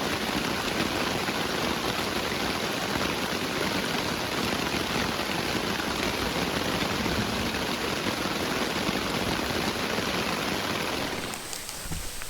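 Heavy rain falling in a steady downpour, dropping away about eleven seconds in.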